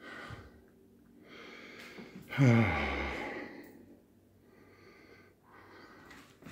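A man's deep sigh about two and a half seconds in: a loud voiced breath out that falls in pitch, with softer breathing around it.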